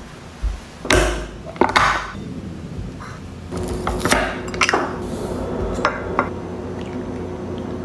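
Kitchen handling sounds: a refrigerator opened and containers taken out, the snap-lock latches of a glass food container's lid clicked open, and a fork clinking on a ceramic plate. Several separate sharp clicks and knocks.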